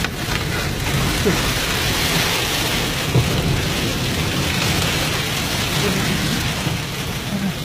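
Storm wind driving sand against the car's body and windscreen, heard from inside the cabin: a dense, steady hiss over a low rumble.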